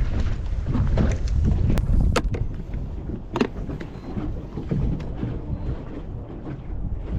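Wind buffeting the microphone on a small fishing boat, a low rumble that is heaviest for the first two seconds or so and then eases. A few sharp clicks or knocks cut through it, two about two seconds in and one near the middle.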